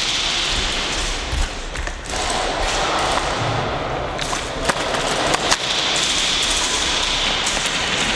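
A steady rushing noise with a few scattered sharp cracks of airsoft gunfire.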